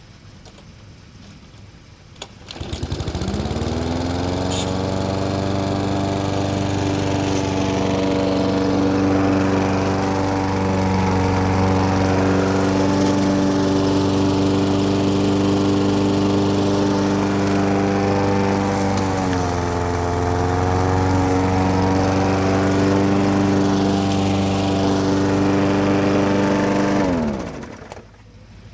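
Weed Eater mower's engine starting up a couple of seconds in and rising to speed, running steadily with a brief dip in speed about two-thirds of the way through, then shutting off and winding down near the end.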